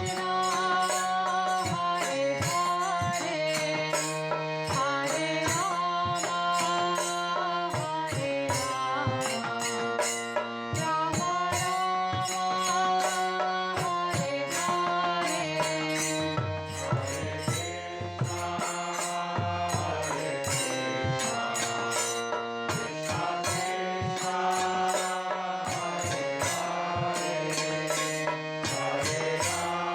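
Background music in an Indian devotional style: a chanted, mantra-like melody over a steady drone, with hand-drum and jingle percussion keeping a beat.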